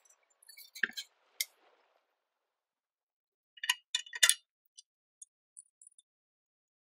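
Metal parts clinking as a centrifugal clutch with a sprocket is handled and slid onto a small engine's crankshaft. There are a few scattered clicks, then a quick cluster of clinks about four seconds in, and faint ticks after.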